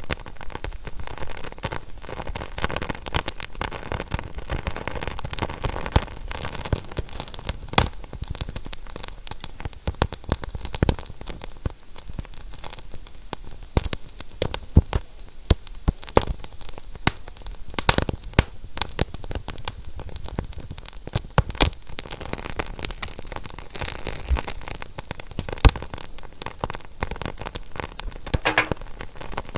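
Fire crackling, with a steady hiss and frequent irregular sharp pops and snaps.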